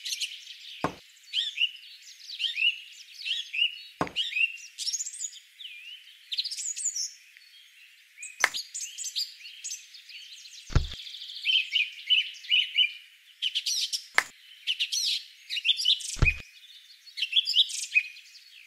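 Many small birds chirping and trilling steadily. Six light knocks come through it, a few seconds apart, as small objects are set down.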